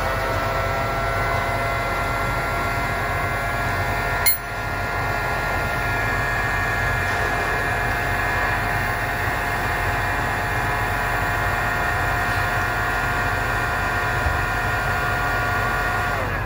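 Electric heat gun running: its fan motor gives a steady whine over a rush of air as it heats a turbocharger compressor wheel to loosen it on its shaft. A brief click about four seconds in, and near the end the whine falls away as the gun is switched off.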